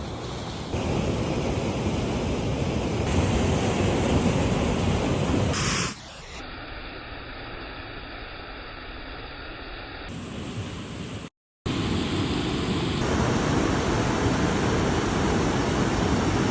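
Rushing river water, a steady loud roar of flowing water, heard across several cut-together shots. It drops to a quieter, duller rush for a few seconds mid-way, with a brief total dropout at a cut.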